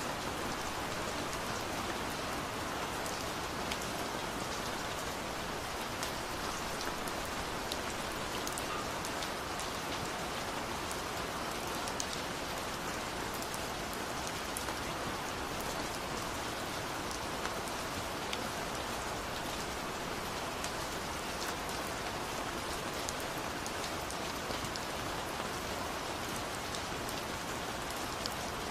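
Steady rain: an unbroken hiss of falling rain with many small droplet ticks scattered through it.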